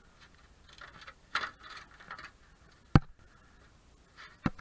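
Sharp clicks and knocks of small metal parts being handled, the loudest about three seconds in and another a second and a half later, with softer rustling between.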